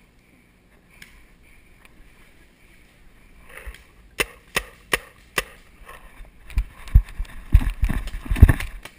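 Four sharp paintball marker shots a little under half a second apart, about four seconds in, followed by heavy thumps of running footsteps on the forest floor.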